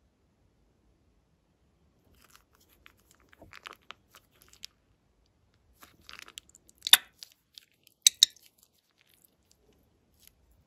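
Plastic piping bag crinkling and crackling as fingers squeeze and pull at it, with three much louder sharp snaps in the second half.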